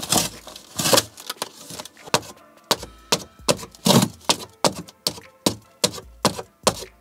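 Hands handling a cardboard box and its packaging: an irregular run of short knocks, taps and rustles, two or three a second.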